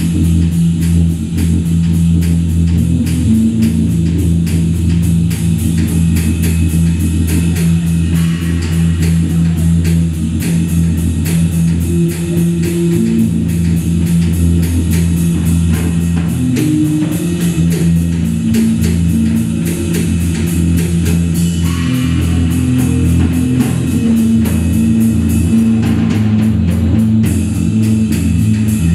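Live instrumental rock trio of drum kit, electric guitar and electric bass playing: long held bass notes under a fast, steady drum beat.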